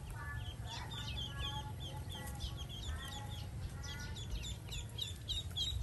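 Young ducklings peeping rapidly, many quick high chirps several times a second, mixed with short repeated calls from adult fowl, over a steady low rumble.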